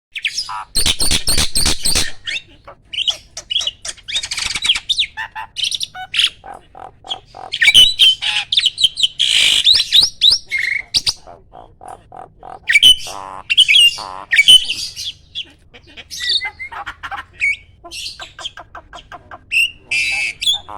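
A jalak starling singing a loud, varied song of whistles, harsh squawks and rapid runs of repeated notes, the fast, loud 'tembakan' phrases prized in Indonesian songbird competitions.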